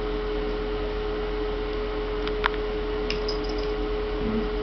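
Steady electrical hum with a constant mid-pitched tone running through. There is a single sharp click about two and a half seconds in, followed by a few faint high ticks.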